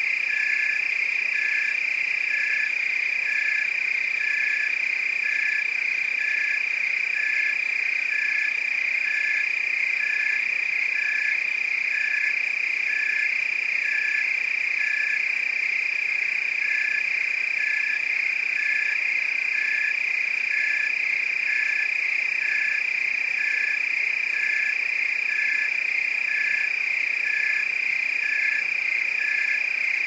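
Night chorus of crickets and frogs: a continuous high trill under a regular pulsing call that repeats about one and a half times a second.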